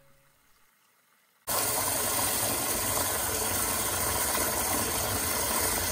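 Near silence for about a second and a half, then a steady loud rush of water starts suddenly: the Blue Mule hose-end sprayer's nozzle running a full stream into a nearly full 5-gallon plastic bucket, the water churning and frothing.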